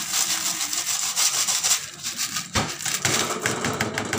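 Mung beans pouring out of a plastic bowl into a pot of water: a dense, rattling rush. About halfway through there is a knock, then a quick run of light ticks near the end as the last beans go in.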